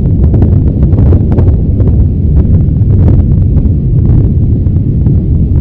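Popocatépetl's ash eruption: a loud, steady low rumble with many short crackles scattered through it.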